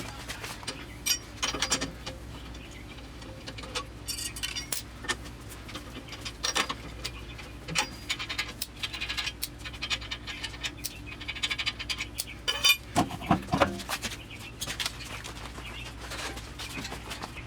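Irregular metallic clinks, taps and knocks of hand tools being handled, with a cluster of louder knocks about two-thirds of the way through.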